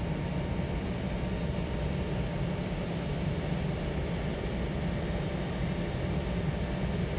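Steady drone of running plant machinery, heaviest in a deep rumble, with a faint thin whine above it and no change throughout.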